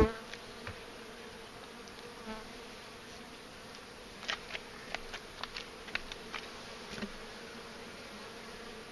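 Honeybees buzzing around an opened hive, a steady hum, with a series of light clicks and knocks from about four seconds in.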